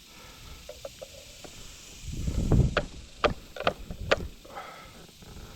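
Parts of a pool pump being handled during disassembly: a low rumble of shifting parts with four or five sharp knocks and clinks from about two seconds in.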